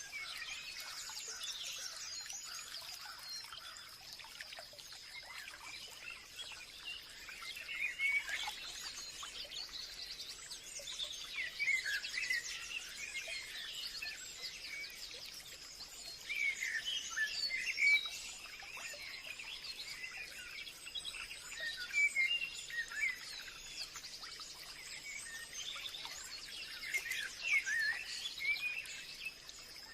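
Forest ambience: birds chirping and calling in clusters of quick notes every few seconds, over a steady high-pitched hum.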